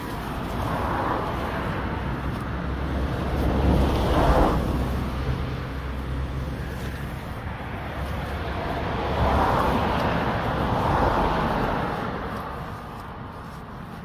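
Road traffic passing close by: vehicles swell past over a steady low rumble, loudest about four seconds in and again around nine to eleven seconds.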